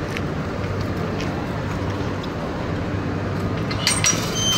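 Steady outdoor background noise with a low hum, and a few short clicks about four seconds in.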